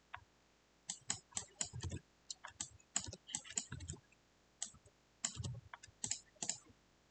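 Typing on a computer keyboard: several short runs of keystrokes with brief pauses between them.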